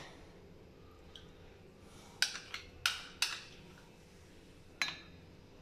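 Metal spoon knocking against a glass dessert cup while spooning thick chocolate cream into it: five sharp clinks, four in quick succession about two to three seconds in and one near five seconds.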